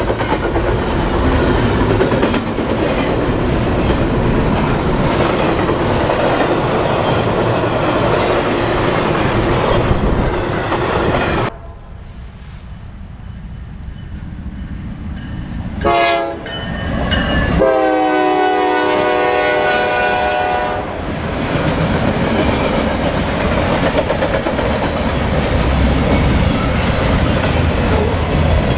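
Freight cars rumbling and clattering past on the rails close by, until the sound cuts off suddenly. After a quieter stretch, an approaching diesel freight locomotive sounds its air horn: a short blast, then a long one of about three seconds. Its train then rumbles and clatters past.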